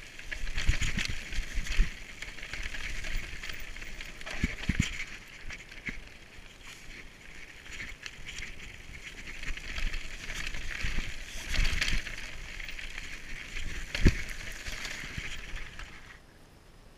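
Mountain bike rolling fast down a rocky gravel trail: tyres crunching over loose stones and the bike rattling, with repeated thumps as it hits bumps. About a second before the end it falls away to quiet outdoor background.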